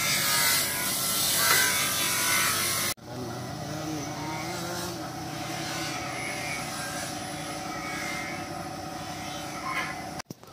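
Metalworking power tool running on stainless steel, a loud harsh hiss, for about three seconds; after a sudden cut, a quieter steady hum of workshop machinery.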